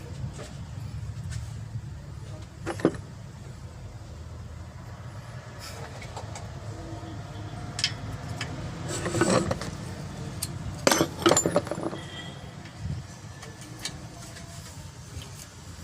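A steady low mechanical rumble with scattered sharp metallic clinks and clanks, a cluster of them about halfway through and another about two-thirds through.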